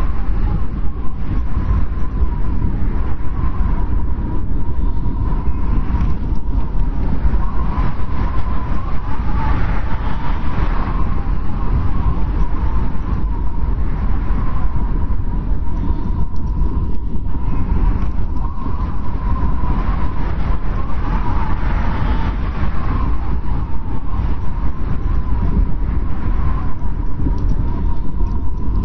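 Howling blizzard wind: a steady deep rumble with a thin, wavering whistle.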